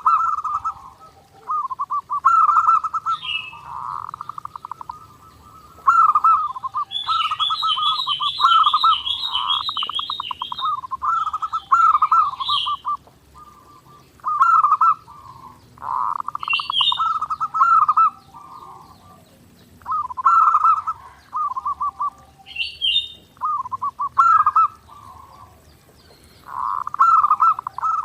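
Zebra doves (perkutut) cooing in repeated rolling phrases of one to two seconds each, separated by short pauses. Higher chirps from other small birds come in now and then, including a fast trill about seven seconds in.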